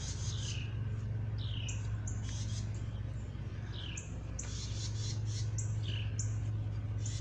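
Birds chirping: a string of quick, high chirps that sweep downward in pitch, repeated throughout, over a steady low hum.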